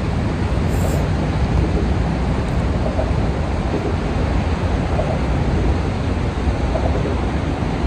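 Steady rushing noise, heaviest in the bass, of wind buffeting the microphone over moving water below a dam.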